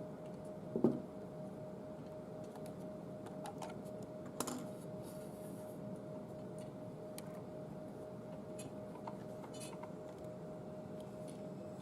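Scattered light clicks and taps, with a louder knock about a second in and another about four and a half seconds in, over a steady faint hum.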